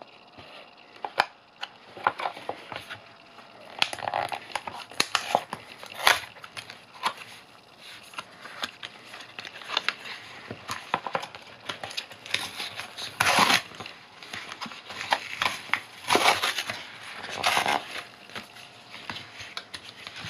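A white paperboard retail box and its paper wrap being torn open and crumpled by hand: irregular crinkling and crackling, with several louder rips in the second half.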